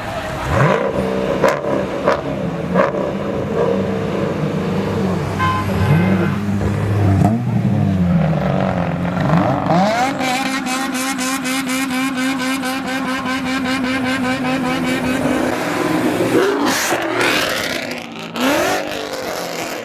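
Sports car engines revving and accelerating away one after another, the pitch rising and falling with each gear change. One car passes close about three-quarters of the way through.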